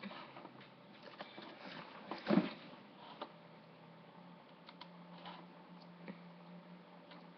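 Low room noise at a computer microphone, with scattered small clicks and one short, louder noise about two seconds in; a steady low hum sets in about three seconds in.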